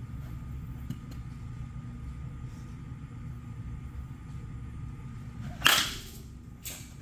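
A bat hitting a pitched baseball: one sharp, loud crack near the end, followed about a second later by a second, softer hit.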